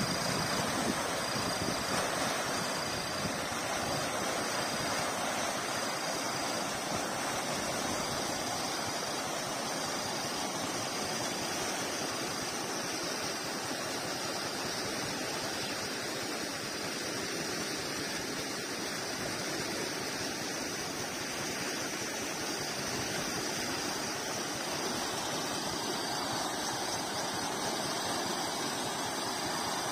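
Floodwater of an overflowing stream rushing and churning, a steady rush of water.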